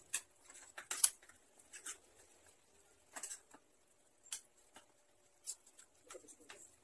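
Scattered light clicks and taps of hands and a utensil working raw chicken pieces in a ceramic bowl, irregular, the loudest about a second in.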